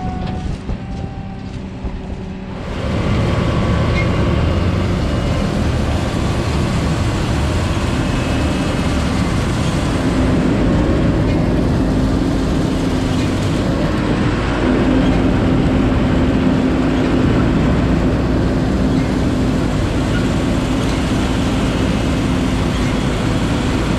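A motor vehicle running: a steady rumble and rushing noise that gets suddenly louder about three seconds in, with a steady hum joining a few seconds later.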